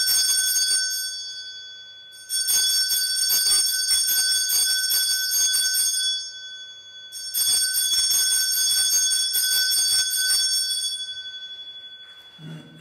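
Altar bells shaken in rapid jingling rounds at the elevation of the chalice after the consecration. One round fades out about a second in, and two more follow, each lasting a few seconds before ringing away.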